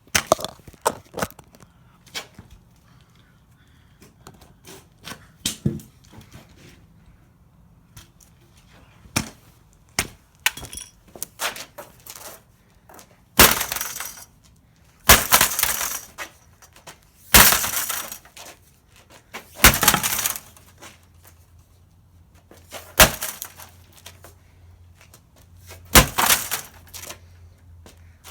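Pickaxe blows smashing a computer monitor, with glass breaking and clinking after each strike. Light knocks and clinks come first, then about six heavy blows every two to three seconds.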